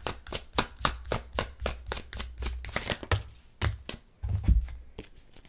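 A deck of tarot cards being shuffled by hand: a quick run of sharp card snaps and clicks, then a few low thumps as cards are put down on the table.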